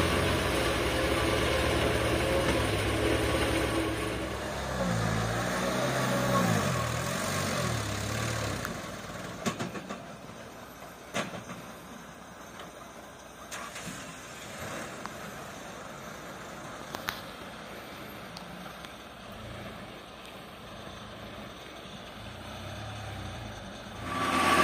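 Diesel engine of a loaded Mitsubishi dump truck running under load on a dirt track, its pitch rising and falling several times about five to eight seconds in. From about nine seconds in the engine is fainter, with a few sharp knocks.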